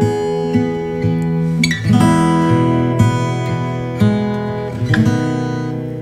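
Background music: an acoustic guitar piece with held chords that change about once a second.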